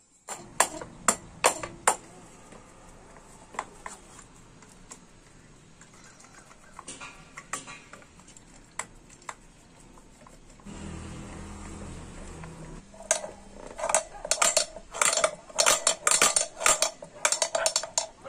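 Metal tools and steel bolts clinking against the aluminium crankcase of a TVS 50 moped engine during assembly. Scattered sharp clinks at first, then a quicker run of ringing clinks over the last few seconds.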